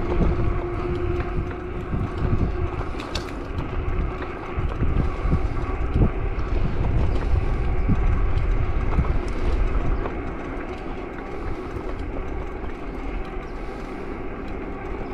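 Wind buffeting the microphone over the running noise of a bicycle rolling along a paved path: a steady rumble that eases slightly about two-thirds of the way through.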